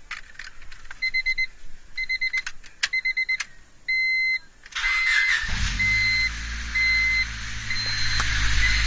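Clicks and groups of quick electronic beeps, then one longer beep. About five seconds in, the 1998 Honda Civic DX's 1.6-litre four-cylinder engine cranks and catches, then settles into a steady idle through its newly fitted ram air intake. Single beeps carry on about once a second over the idle.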